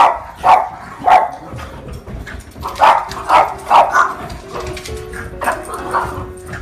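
Puppies barking in short, sharp play barks: three in about the first second, then a quicker run of barks from about three seconds in, and a few more near the end. Faint background music runs beneath.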